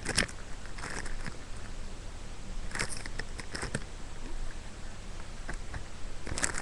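Handling noise: a handful of brief knocks and rustles as squishy toys and their packaging are moved about, the loudest right at the start, over a low steady hum.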